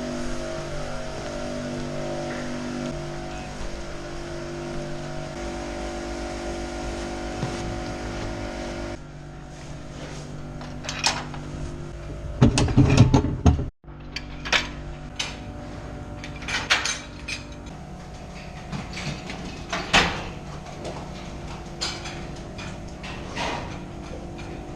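Tractor engine running steadily, with scattered sharp clanks and knocks and a louder rattling clatter about halfway through; the sound cuts out for an instant just after it.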